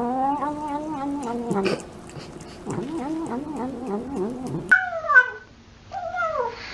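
A cat making a long, wavering, murmuring call as it eats, the 'nom nom' noise some cats make over food, repeated after a short break, with small clicks. After a cut, two short meows, each falling in pitch.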